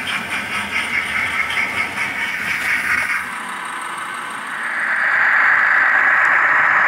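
Model trains running on the layout: the whirr of small electric motors and wheels on the track. It swells to a louder, steady whirr a few seconds in, as a train runs close by.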